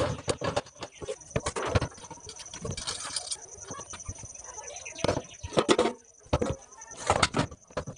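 Steel kitchen utensils and a pot lid being handled, giving a string of irregular clinks, knocks and taps.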